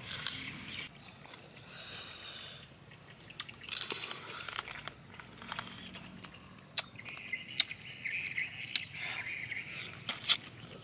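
Grilled crab being eaten by hand: a series of sharp cracks and clicks of crab shell breaking, with wet chewing and picking sounds between them.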